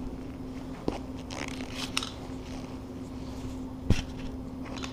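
Vinyl plank flooring being cut and worked loose by hand: crunching and scraping with a few sharp clicks, and a louder knock about four seconds in, over a steady low hum.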